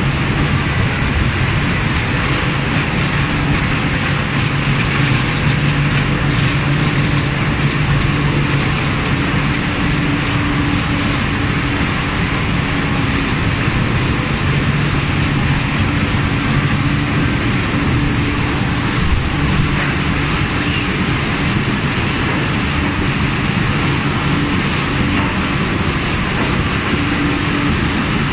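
Paper-box roll die-cutting and stripping machines running steadily on a factory floor: a loud, continuous mechanical din with a steady low hum underneath.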